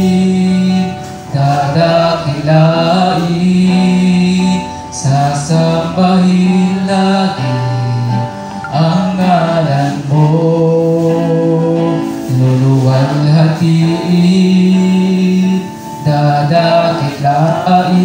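A slow Tagalog worship song: a man singing through a microphone over guitar accompaniment, with long held notes and short pauses between phrases.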